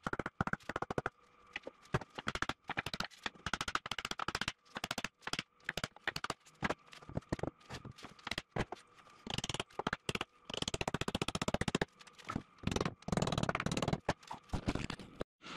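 A quick, irregular run of sharp knocks and clicks from tools working wood, with a few longer scraping passes about two-thirds of the way through and again near the end.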